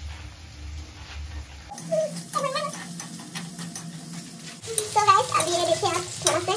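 Vegetables sizzling in hot oil in an iron kadai while a metal spatula stirs them, clinking and scraping against the pan.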